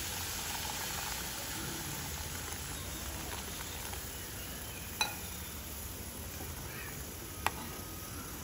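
Water poured in a stream into a hot curd curry in a kadai, a steady hiss of pouring and sizzling, while a steel ladle stirs it, clinking sharply against the pan twice in the second half.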